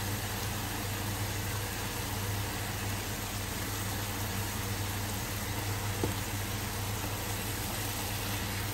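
Sliced saffron milk caps, onion and garlic sizzling steadily in oil in a hot frying pan, over a steady low hum. One light click about six seconds in.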